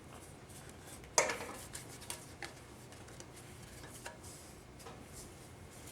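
Steel 4L60E transmission parts clinking as they are handled and worked down into the housing: one sharp metallic click about a second in, then a few lighter ticks.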